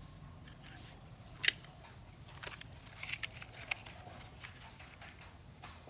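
Handling noises from a toy truck being picked up and turned over: one sharp click about a second and a half in, then a cluster of small clicks and taps around three seconds in, over a low steady hum.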